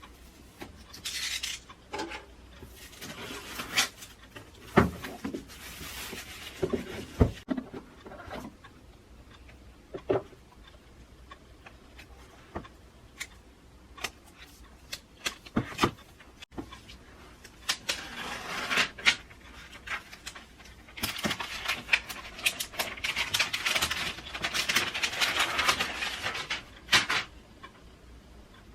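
Hand-handling sounds of unboxing: packaging rustling and sliding in several stretches, the longest in the second half, with scattered sharp clicks and knocks as items are picked up and set down.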